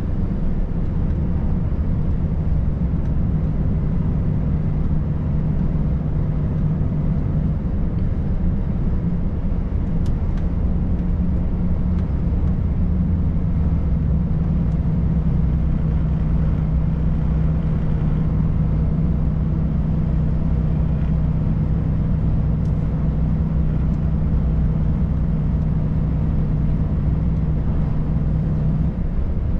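Volvo FH540 truck's 13-litre inline-six diesel running at a steady cruise, a low, even drone with a constant hum tone and road noise; the tone shifts slightly in pitch about eight seconds in.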